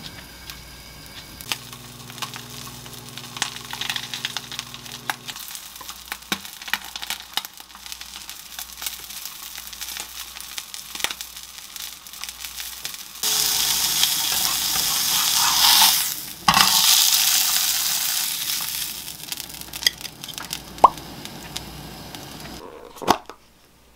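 Mackerel fillet frying on baking paper in a pan, sizzling, loudest for several seconds past the middle, among scattered clicks and taps of utensils and dishes.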